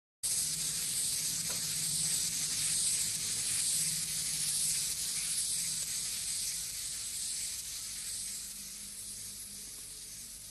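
Clockwork wind-up toy whirring as it walks: a steady hissing buzz over a low hum that slowly fades.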